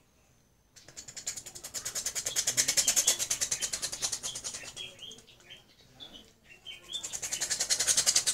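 A boy's vocal imitation of a helicopter: a rapid, hissy chopping pulse that starts about a second in, swells and fades, then swells again near the end.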